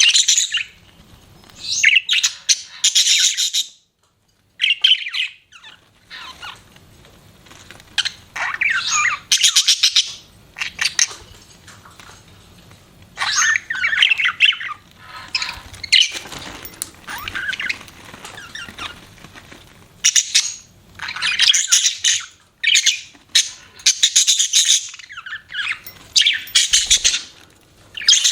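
Budgerigars chirping and chattering in loud spells of a second or two, with short quiet gaps between them.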